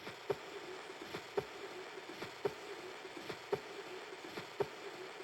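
Heart sounds of aortic stenosis heard through a stethoscope: a slow heartbeat, about one beat a second, each beat a pair of soft clicks over a continuous murmur.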